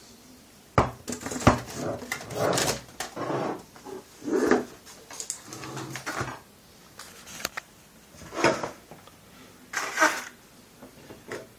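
Handling noise: scattered knocks, scrapes and rustles, with two sharp knocks about a second in.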